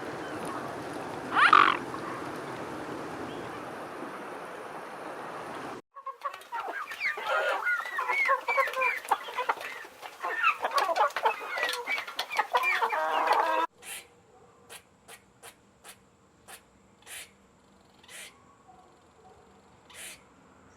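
Chickens clucking and calling: one louder call over a steady noisy background about a second and a half in, then a dense run of short, quick clucks. From about two-thirds of the way through, only sparse faint ticks remain.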